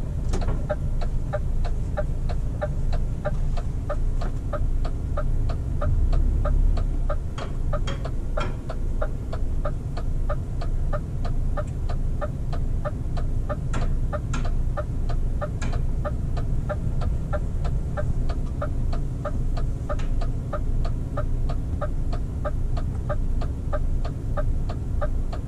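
Truck's turn-signal indicator ticking steadily, about two clicks a second, over the low drone of the engine and road noise in the cab.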